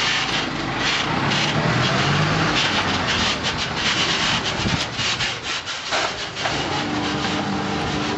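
Rotopress garbage truck's packing mechanism churning bagged rubbish in the rear hopper: a grinding, crackling noise. From about seven seconds in, a steady machine hum takes over as the truck pulls away.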